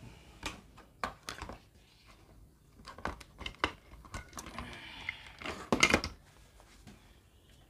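Irregular clicks and rustling, like things being handled on a workbench, with the loudest cluster of clicks about six seconds in.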